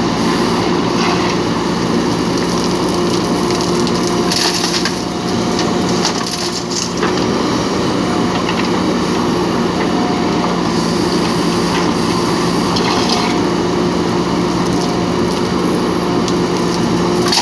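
JCB backhoe loader's diesel engine running steadily under load, with bursts of crunching and scraping from soil and stones, strongest about four to seven seconds in.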